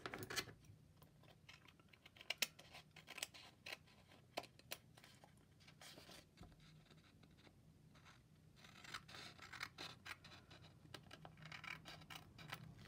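Small craft scissors faintly snipping through the edge of a thin paper doily, with paper handling between the cuts; the snips come scattered at first and close together from about nine seconds in.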